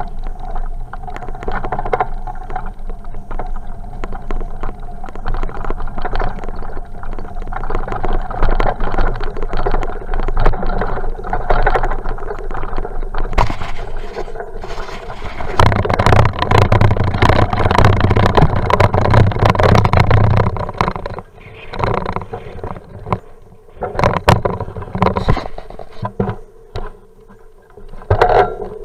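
Riding noise from a bicycle: tyres rolling over a rough surface, with constant rattles and knocks from the bike and the camera mount. The rumble grows louder and heavier for about five seconds past the middle, then eases, with scattered sharp knocks near the end.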